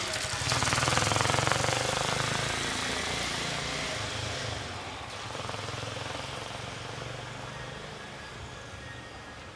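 A vehicle passes close by with a fast, rattling pulse, loudest in the first two seconds, then fades away steadily as it recedes, leaving street background.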